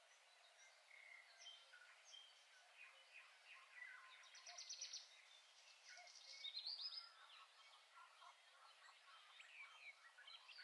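Faint birdsong: many small birds chirping and calling, with two quick high trills in the middle.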